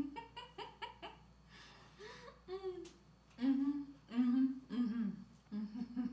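A woman's voice: a few short laughs, then four drawn-out closed-mouth "mmm" hums of enjoyment while she chews a mouthful of food.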